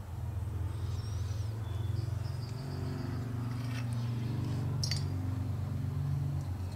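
Steady low hum in the background, with two light clicks of small metal carburetor parts being handled, a little under halfway and about two-thirds of the way through.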